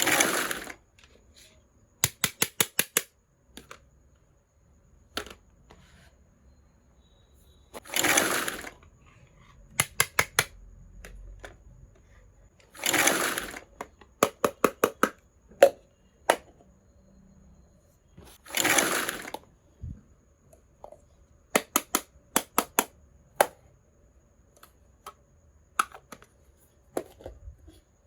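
Handling of a miniature toy kitchen set and its packaging: four short noisy swishes, and several quick runs of about five small sharp clicks, with scattered single clicks between.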